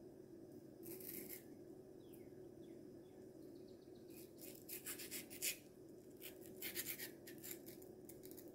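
Faint, short scraping strokes of a kitchen knife paring the last flesh off a mango pit. They come in a few small groups over a low steady room hum.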